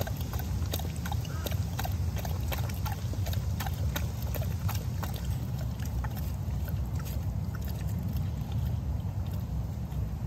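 Steady low rumble on the microphone, with scattered small, irregular clicks and crunches from walking outdoors.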